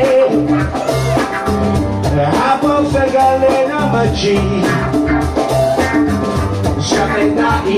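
Live band playing an upbeat song on drum kit and electric guitar, with a man singing into a microphone.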